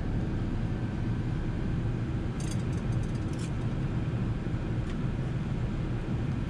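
Steady low rumble of airflow and engines heard inside the cabin of an Airbus A380 in flight, with a brief cluster of light clicks about two and a half seconds in.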